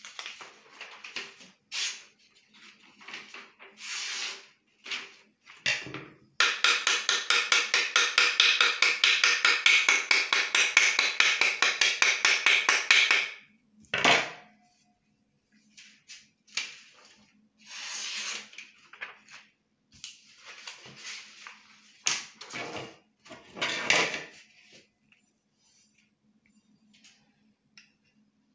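Knife blade slicing through sheets of paper: a series of short, papery cutting swishes. In the middle comes a loud run of rapid, evenly repeated strokes lasting several seconds.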